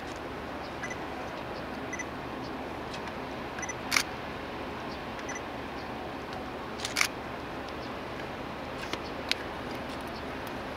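Camera shutters clicking several times, sharpest about four seconds in and again near seven seconds, over a steady background noise. A few faint short beeps are heard in between.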